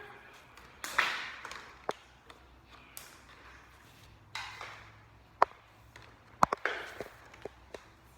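Handling noise from working on a vacuum cleaner's wiring by hand: scattered sharp clicks and taps with a few brief rustling swishes, over a faint low hum; the vacuum motor is not running.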